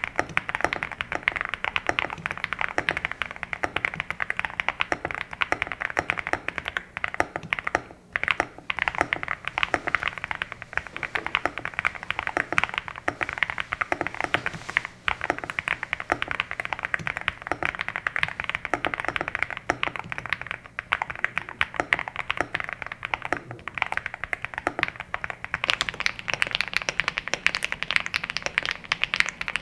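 Continuous typing on an EVO80 custom mechanical keyboard: a steady stream of keystroke clacks, with brief pauses about eight seconds in and again around fifteen seconds.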